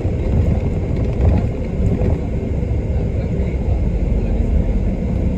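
Double-decker bus driving along the road, heard from inside on the upper deck: a steady low rumble of engine and tyres.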